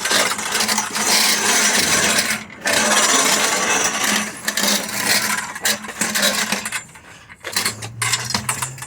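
Sheet-metal duct being bent in half by hand: the thin metal crinkles, creaks and rattles in two long bouts, dying down near the end.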